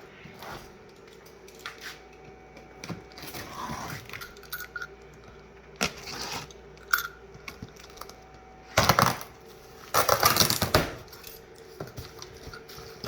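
Cardboard box being opened by hand: scattered light knocks and rustles, then two louder rustling, scraping sounds of under a second each, about nine and ten seconds in.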